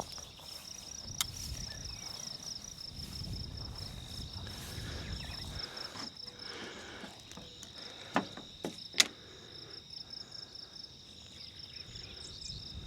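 Insects chirping in a rapid, steady pulsing trill over a constant high drone, with a few sharp clicks about eight to nine seconds in.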